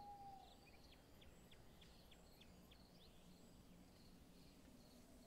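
Near silence, with faint high chirps, a few a second, for about two seconds.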